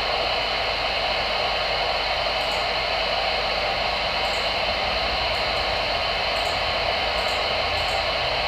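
Steady hiss of static from a Voyage CB radio receiver with the squelch open and no station transmitting on the channel.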